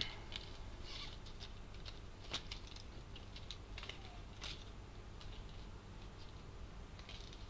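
Faint, scattered light clicks and taps from small objects being handled, the most distinct one about two seconds in.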